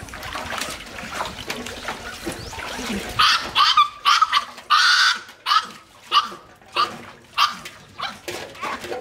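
Puppy whining and yelping in a string of short, high-pitched cries, starting about three seconds in and coming roughly one or two a second, over water splashing in a metal basin.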